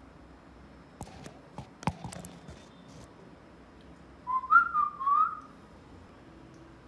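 A few sharp clicks and knocks about one to two seconds in, then a pet Alexandrine parakeet gives a short whistled phrase of a few rising notes, the loudest sound here.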